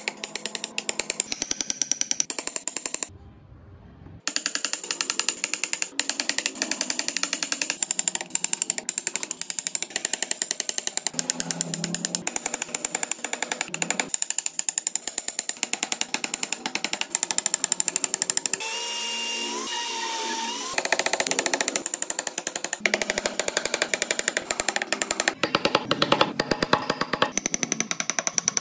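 A steel chisel cutting into the wood of a carved car body in fast, even, repeated taps, like a rapid hammering tool. The tapping breaks off briefly a few seconds in. About two-thirds of the way through, a steady sound with a sliding pitch replaces it for about two seconds.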